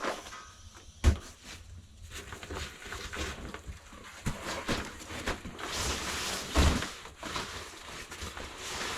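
Rustling and handling of a sleeping bag and pad being laid out on a cabin floor. There are two heavy thumps, about a second in and again past six seconds, and the fabric rustle gets denser in the second half.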